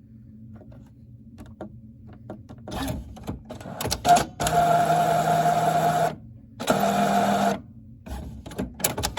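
Printer mechanism running in stop-start motor bursts: scattered light clicks, a sharp click about four seconds in, a steady whir of about a second and a half, a brief stop, then a second shorter whir, with more clicks near the end. These are the weird noises the printer is making.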